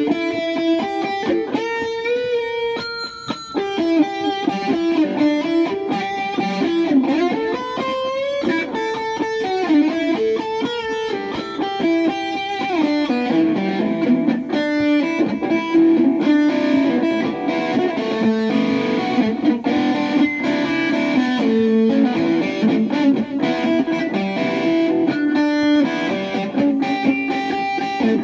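Strobe Rambler electric guitar played through a small Roland amp with overdrive: blues lines of single notes with bent and wavering pitches.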